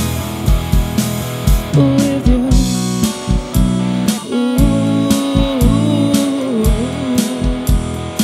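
Live band playing: electric bass, electric guitar and drum kit over a steady kick-drum beat, with a woman singing lead from about two seconds in.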